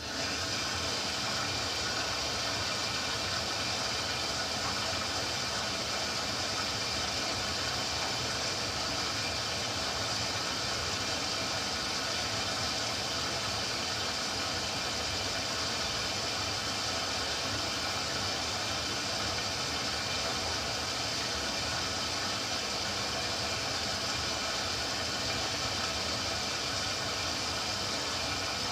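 Ariston Quadrifoglio LB476ST washing machine taking in water, a steady hiss that starts abruptly and holds evenly: the machine is drawing extra water for a full load.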